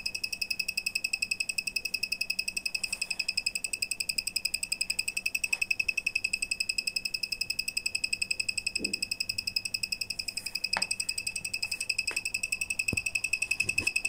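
A 3V active buzzer driven by a BC547 transistor circuit sounding one continuous high-pitched beep with a rapid, even flutter in level. A few faint clicks come from the circuit being handled.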